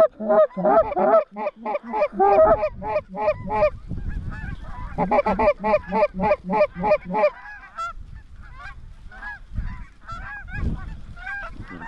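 Rapid, rhythmic goose honks and clucks, loud for about the first seven seconds, then fainter and more scattered.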